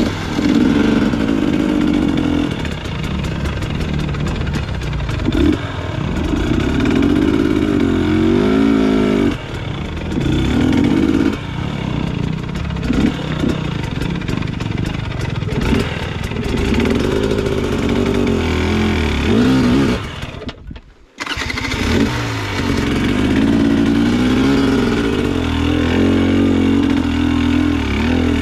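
Dirt bike engine revving in repeated short bursts and dropping back, the pitch climbing and falling with the throttle. It breaks off briefly about three-quarters of the way through.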